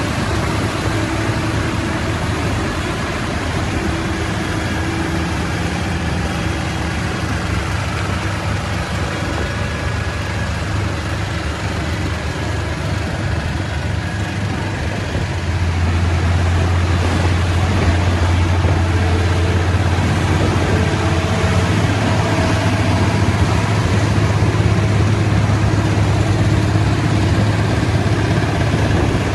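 Heavy-haul truck diesel engines running steadily. A deep low hum grows louder about halfway through.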